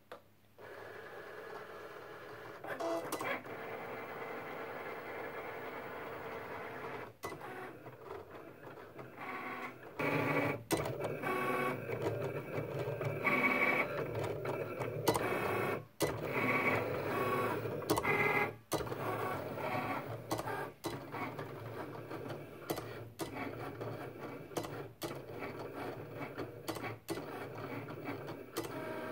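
Cricut Explore Air cutting machine cutting a design out of gold adhesive foil: its motors whir as the blade carriage and rollers move the mat back and forth, changing pitch with each move, with occasional sharp clicks. It gets louder about ten seconds in.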